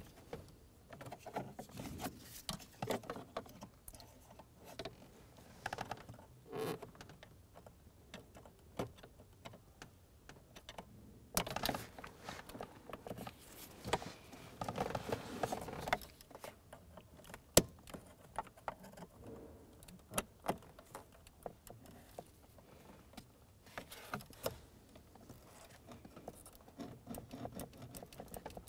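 Small plastic clicks and rattles as a metal pick and gloved hands work the locking tabs of a fuel pump relay in the under-dash relay box, with one sharp click a little past halfway.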